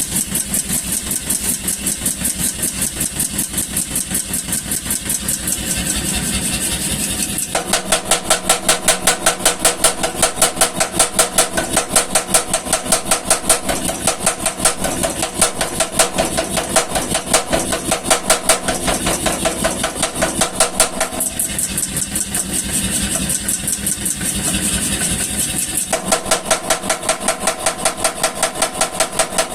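Power hammer running, striking rapidly and evenly at about four or five blows a second. The blows turn heavier and ring metallically from about 7 s to about 21 s in, and again from about 26 s to the end.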